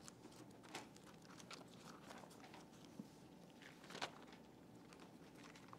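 Near silence with faint rustling and a few soft ticks of Bible pages being turned; the clearest tick comes about four seconds in.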